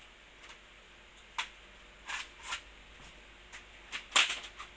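Plastic clips of a laptop's bottom case snapping loose one after another as the case is prised apart by hand: a string of sharp clicks and snaps, the loudest near the end.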